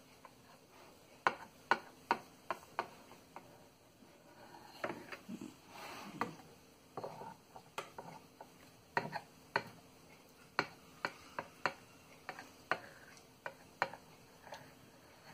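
Scattered light clicks and taps on a glass baking dish as a hand handles cut squares of firm jelly cake, with soft rubbing sounds in between.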